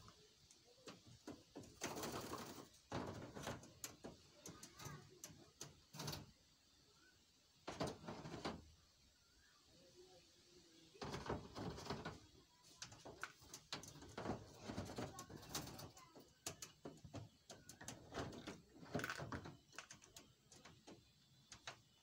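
A ringneck parrot bathing at a shallow water dish: irregular short bursts of splashing and wing flapping, in clusters that come thickest in the second half.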